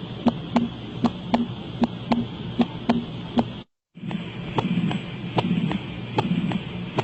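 Heart sounds heard through a stethoscope: paired lub-dub beats at a steady rate of about 75 a minute. About three and a half seconds in the recording cuts off briefly, and a second heart recording follows in which a longer sound fills the gaps between the beats.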